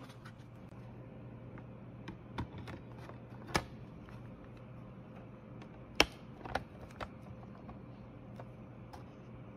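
Glass panes and a plastic photo frame being handled and fitted together: a handful of sharp clicks and taps, the loudest about six seconds in, over a low steady hum.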